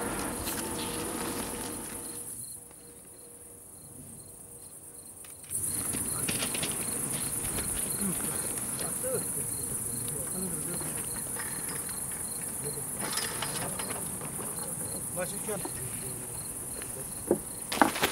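Crickets chirping in grass at night: a steady high trill with a regular chirp about three times a second, plus a few rustles and knocks of movement near the end.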